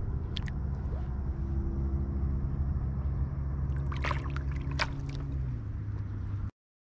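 An engine running steadily at a low pitch, with a few short splashes as a small fish is let go into the water about four seconds in. It all cuts off suddenly near the end.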